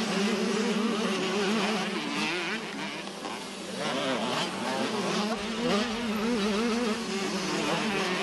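125cc two-stroke motocross bikes racing, their engines buzzing and revving up and down.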